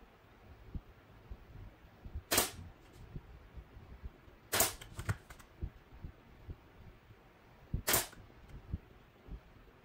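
Nail gun firing three sharp shots a couple of seconds apart, driving nails into the side of a wooden drawer box, with light handling knocks between shots.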